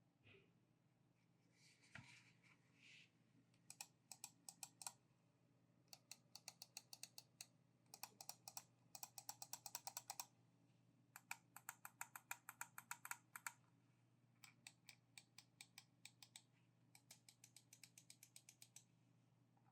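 Aqirys Nova gaming mouse clicking in six quick runs of sharp, evenly spaced clicks, about six a second, after a brief scuffing sound about two seconds in.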